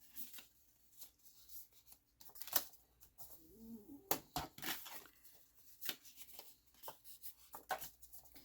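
Sheet of 90 lb cardstock being folded and creased along its score lines: irregular crisp papery crackles and short scrapes.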